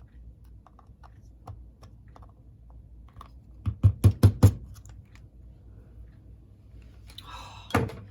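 Small metal tools clicking and tapping against the parts of a model locomotive motor, with a quick run of about five sharp, loud taps about four seconds in and another knock near the end.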